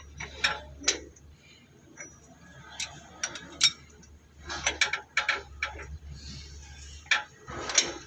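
Ratchet wrench and socket working a bolt on a wheeled backhoe's axle flange: sharp metallic clicks and clinks, scattered and irregular, with a quick run of them near the middle.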